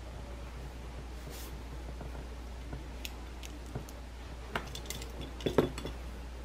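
Light plastic clicks and taps of mechanical pencils being handled and set down on a desk mat, a few scattered early and a small cluster near the end, over a steady low hum.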